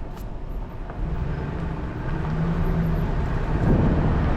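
Vehicle rolling slowly: a steady low engine hum and road rumble, growing louder near the end.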